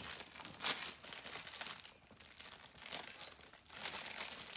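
Paper crinkling and tearing as a gift is unwrapped by hand, in several short rustling bursts with the loudest about two-thirds of a second in.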